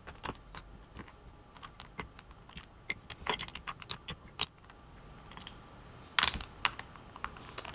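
Small plastic puzzle pieces clicking and clacking together as they are handled and fitted into a cube shape, in irregular light clicks with louder clusters about three seconds in and about six seconds in.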